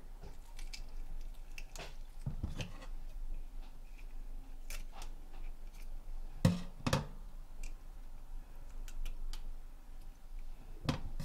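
Kitchen scissors snipping at a small whole fish around its head and gills: scattered light clicks and handling sounds, with two sharp snips about six and a half seconds in and another near the end.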